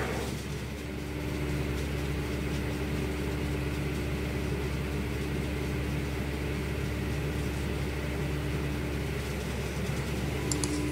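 Field circular sawmill running steadily with no load, a constant machine hum with a steady tone from the spinning blade and drive; the blade is not cutting.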